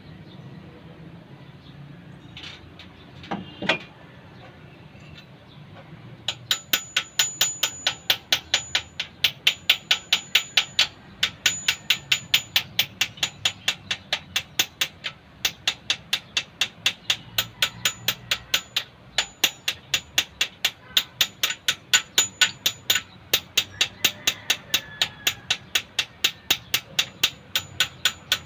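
Hammer striking metal: a couple of single knocks, then from about six seconds in a steady run of sharp, ringing blows at roughly three a second.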